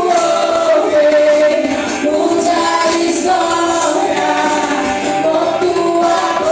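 A group of voices singing a worship song together in long held notes, with instrumental accompaniment.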